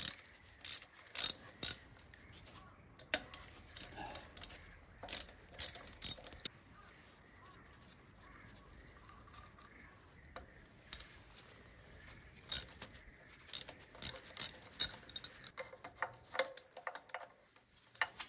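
Hand tools clicking and clinking against the metal parts of an engine as bolts and nuts are worked: irregular sharp metallic clicks in two spells, with a quieter stretch in the middle.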